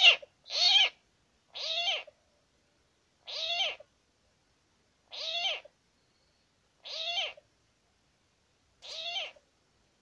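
A recorded bird-luring call played from an electronic caller: seven short calls, each rising then falling in pitch, coming further apart as they go.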